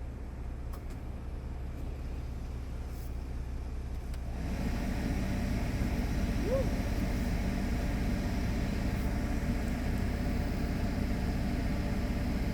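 Car engine running, heard from inside the car as a steady low hum that grows louder and fuller about four and a half seconds in.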